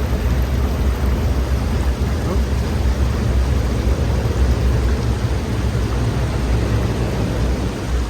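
River water rushing, a loud steady noise with a heavy deep rumble under it.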